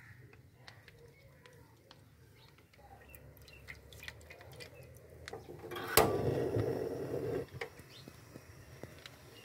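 Cooking oil poured into a steel frying pan, with faint small clinks. About six seconds in comes a sharp knock followed by a brief noisy rush lasting about a second and a half, the loudest sound.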